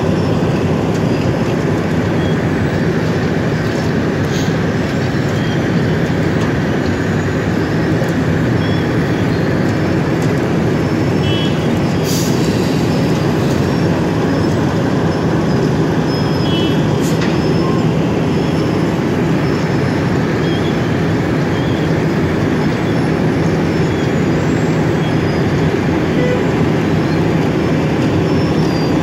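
Wirtgen cold milling machine milling asphalt: its diesel engine running steadily under load with the cutting drum grinding the road surface, a loud, even, unbroken grinding hum.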